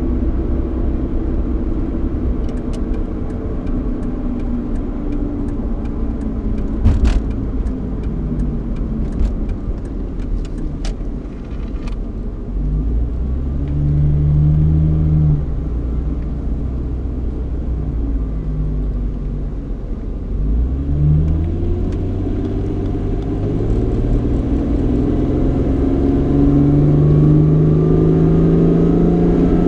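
Cabin noise inside a Ford Mustang with a 3.8-litre V6 and automatic transmission: steady engine hum and road rumble. There is a scattering of light clicks in the first half and a single sharper knock about seven seconds in. After about twenty seconds the engine note rises twice as the car accelerates.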